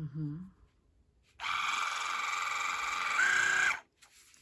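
Cordless Waterpik water flosser's pump motor switched on about a second and a half in, running steadily for about two and a half seconds with a higher tone coming in near the end, then switched off abruptly. A brief short voice sound at the very start.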